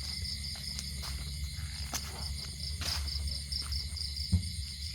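Night insects, crickets, chirping in a steady high pulsing trill, over a low rumble, with a few faint clicks and one sharper knock about four seconds in.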